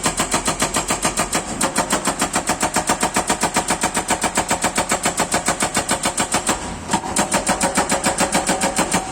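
Excavator-mounted hydraulic rock breaker hammering on large rock, a rapid even run of about eight blows a second. It pauses briefly about seven seconds in, then starts again.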